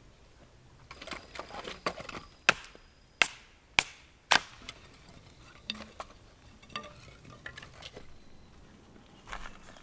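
Firewood being split: irregular sharp wooden knocks and splintering cracks, with four hard strikes in quick succession near the middle.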